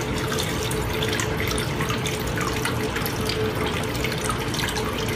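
Water running and swirling steadily in a blue bowl gold concentrator, washing black sand over and down through the centre cone. A faint steady hum sits under the water sound.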